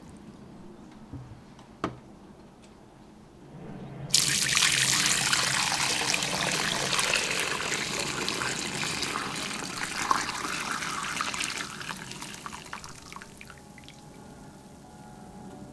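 A single sharp click, then chicken broth poured through a wire-mesh strainer into a glass bowl. The splashing pour starts abruptly about four seconds in, runs steadily, and thins out to a trickle over the last few seconds.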